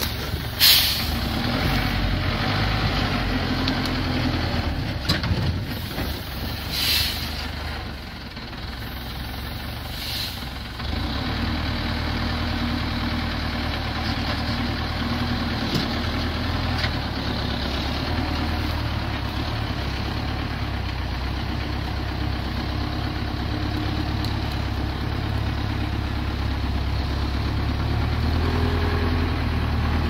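Large engine running steadily, with short hissing bursts about a second in, around seven seconds and around ten seconds.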